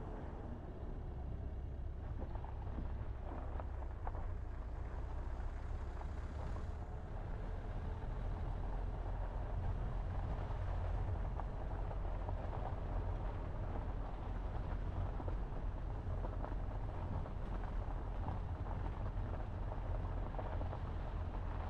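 Car driving on a country road: a steady low rumble of tyres and engine. The surface changes from asphalt to a dirt track partway through.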